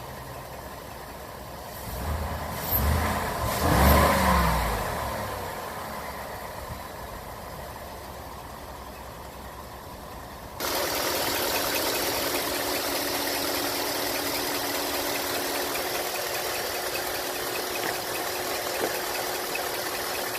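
Ford 5.0 V8 engine blipped three times in quick succession about two to four seconds in, then dropping back to a steady idle. About ten seconds in the sound abruptly turns louder and hissier as the idle is picked up close to the engine. The owner hears a knock in it that he takes for piston slap rather than cam phaser noise.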